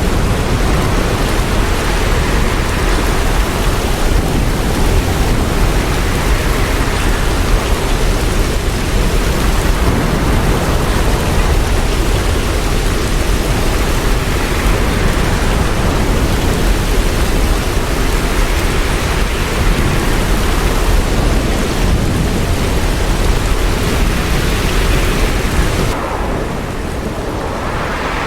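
Hurricane wind and heavy rain, a dense steady rushing noise with a heavy low rumble. Near the end the hiss thins out and it becomes a little quieter.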